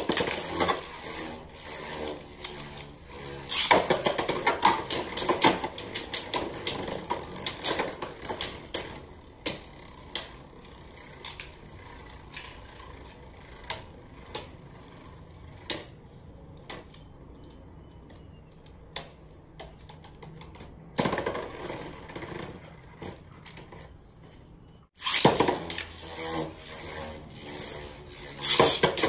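Beyblade Burst spinning tops clashing in a plastic stadium: rapid rattling clicks and knocks as the tops strike each other and the stadium walls. Between clashes the tips scrape on the stadium floor with a steady whirring hiss, and a fresh run of clashes comes near the end.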